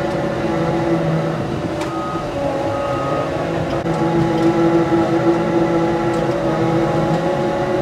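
Caterpillar 285 compact track loader's diesel engine running steadily under load as it pushes a pile of dirt with its bucket, getting a little louder about four seconds in.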